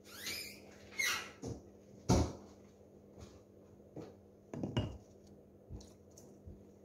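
Bowls and a plastic colander being handled and set down at a stainless-steel kitchen sink: a handful of separate knocks and clatters, the loudest about two seconds in.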